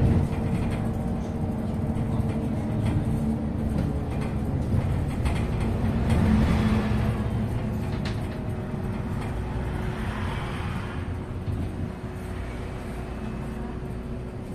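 A MAZ-215 articulated city bus running on the road, heard from inside the passenger cabin: a steady engine hum under road and tyre noise, easing off a little near the end.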